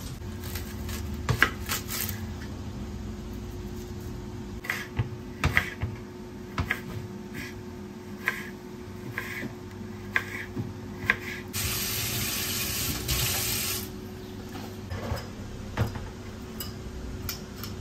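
Kitchen knife cutting onion and garlic on a bamboo cutting board: irregular single knocks of the blade on the board. A steady hiss runs for about two seconds past the middle, over a low steady hum.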